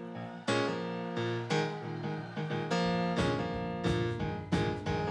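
A live band starting a song. Keyboard chords ring out first, then bass and drums come in about three seconds in.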